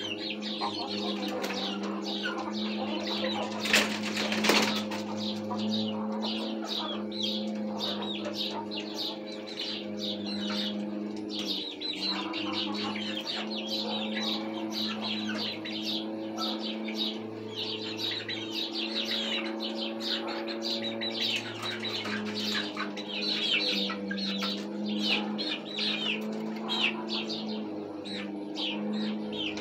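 Young chickens roosting on a perch: a steady stream of short, high chirps and peeps, with a loud burst of wing flapping about four seconds in as a bird moves between perches. A steady low hum runs underneath.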